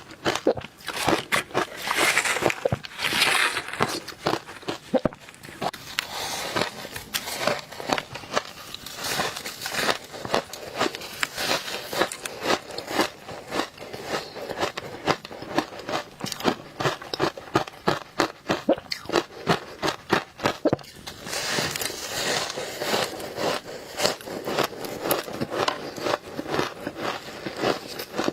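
Close-miked biting and chewing of frozen matcha ice: fast, dense crunching and crackling, with louder crumbling bites about two seconds in and again about three-quarters of the way through.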